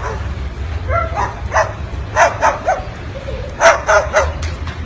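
A string of short, dog-like barks and yaps, mostly in quick clusters of two or three, over a steady low hum.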